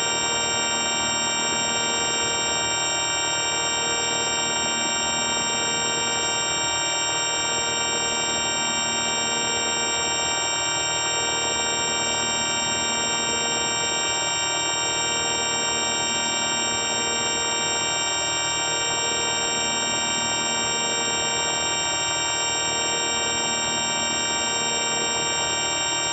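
Synthetic electronic drone produced with the 4ormulator V1 audio effect: a steady buzzing chord of many fixed tones over a hiss, with the lower tones pulsing slowly every two to three seconds.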